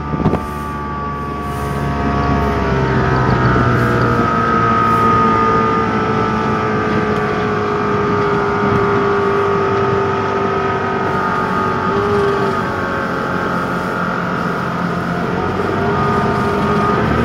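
Mercury 85 hp outboard motor running a speedboat under way, heard from on board. It is a little quieter for the first two seconds, then louder and holds a steady note.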